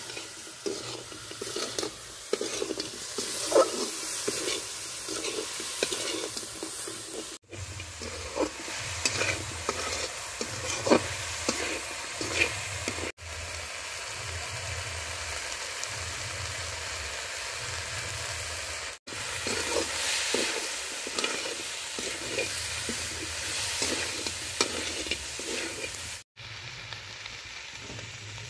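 Chicken pieces sizzling as they fry in a metal kadai, with a metal spatula scraping and stirring them in quick repeated strokes that come in spells.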